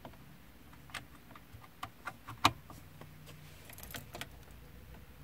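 Light clicks and scrapes of a USB flash drive being pushed into the USB socket of a Renault/Dacia MediaNav head unit. The loudest click comes about two and a half seconds in.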